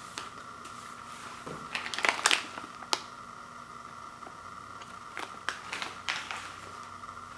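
A plastic gum pouch crinkling as it is picked up and handled. The loudest burst of crinkles comes about two seconds in, and another cluster comes around five to six seconds. A steady high-pitched hum sits under it throughout.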